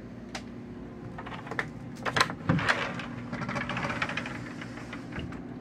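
Wooden pocket door sliding on its track, with scattered clicks and a grainy run of rapid small rattles in the middle, over a steady low hum.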